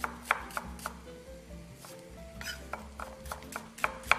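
Chef's knife slicing onions on a wooden cutting board, the blade knocking the board with each stroke. A few strokes come at the start, a lull follows, and the strokes pick up again, quicker, near the end.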